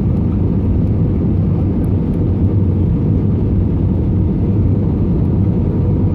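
Jet airliner cabin noise on approach to landing, heard from a window seat: a steady, loud, mostly low-pitched rush of engines and airflow with a faint steady hum above it.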